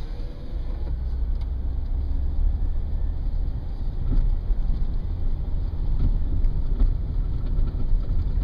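Car driving slowly over snow-covered lake ice, heard from inside the cabin: a steady low rumble of engine and tyres, with a few faint clicks.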